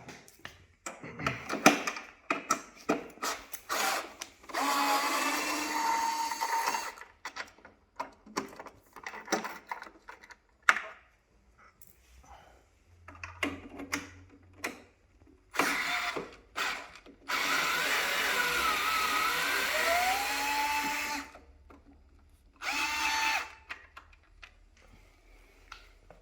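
Power driver backing out hex screws from an electric unicycle's side cover, in three runs of motor whine whose pitch rises and settles. Between the runs come short clicks and knocks of the bit and screws.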